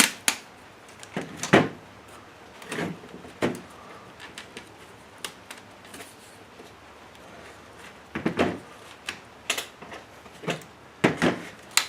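Plastic snap clips and housing of a Chrysler car radio head unit clicking and knocking as it is worked apart by hand: irregular sharp clicks, the loudest about a second and a half in, with a cluster of them near the end.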